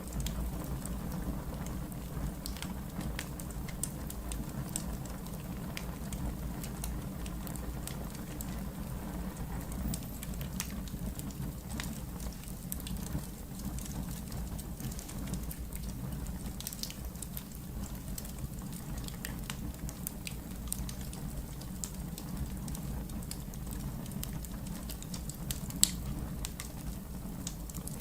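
Wood fire burning in a fireplace: a steady low rumble with scattered crackles, and one louder pop near the end.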